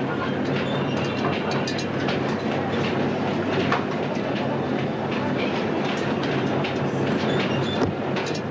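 Airplane carousel ride spinning, with a steady motor hum under continuous rattling and clacking from the ride.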